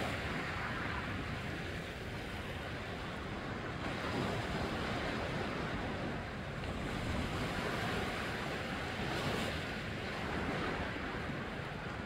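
Sea surf washing onto a rocky shore: a steady hiss of small waves that swells and eases every few seconds.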